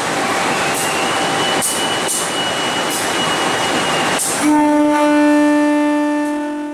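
CC 203 diesel-electric locomotive passing close by at moderate speed, its wheels clicking over the rail joints. About four and a half seconds in, a loud, steady horn blast starts and holds to the end.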